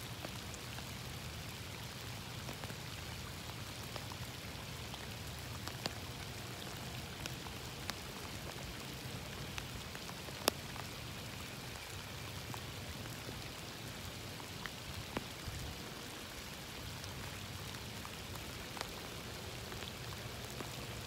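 Steady rain falling, an even hiss with scattered sharper ticks of individual drops; one louder tick about ten seconds in.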